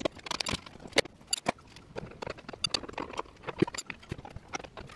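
Irregular metallic clicks and knocks from hand tools working a bolt on a Nissan 350Z's rear suspension arm, while arms are being undone and fitted.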